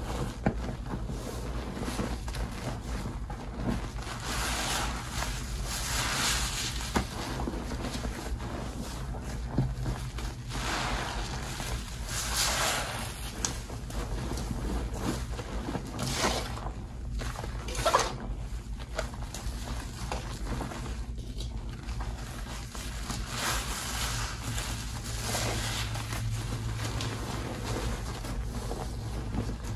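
Soaked sponges squeezed and kneaded by hand in thick soap foam: wet squelching and squishing of suds, coming in repeated swells a second or two long.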